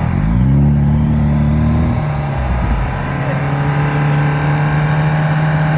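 Off-road vehicle's engine revving up hard and held at high revs, dipping slightly about two seconds in, as it strains to pull free of the mud.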